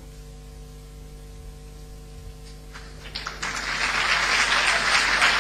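Audience applause: a few scattered claps about three seconds in, quickly building into loud, steady clapping. Before it there is only a low steady hum.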